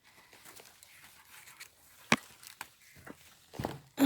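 Careful footsteps and knocks on old, rotting timber flooring: mostly quiet, with one sharp knock about halfway through, a few lighter ones after it, and a heavier thud near the end.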